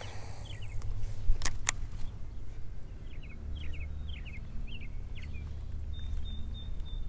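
Cast with a baitcasting reel: a brief high whir of the spool paying out line, then two sharp clicks about a second and a half in. Small birds chirp in short falling notes over a low, steady rumble.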